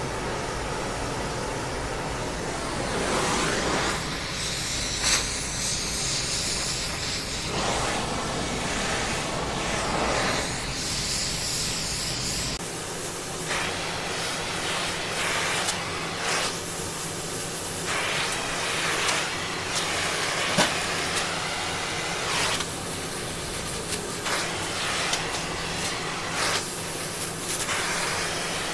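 Oxy-acetylene torch flame hissing steadily, with repeated stretches of sizzling as a damp rag is wiped over the torch-heated steel tabletop, quenching small hot spots to heat-shrink the warped plate.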